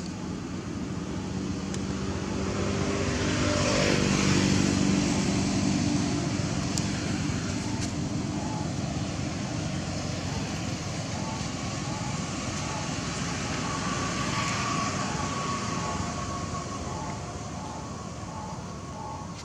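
Road traffic: a motor vehicle passes, loudest about four seconds in, and a second one passes more faintly around fifteen seconds. From about eight seconds on there is a faint, evenly spaced series of beeps.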